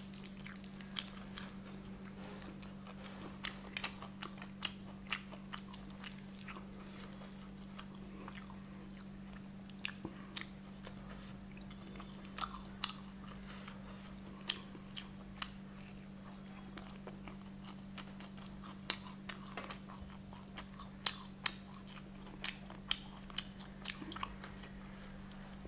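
Close-up chewing and crunching of crispy fried chicken legs wrapped in lettuce, with many short, sharp crackles that come thickest in the second half. A steady low hum runs underneath.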